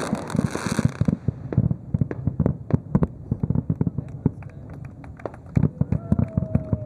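Fireworks finale heard from a distance: a dense, irregular run of pops and bangs from bursting shells, with a crackling hiss in the first second.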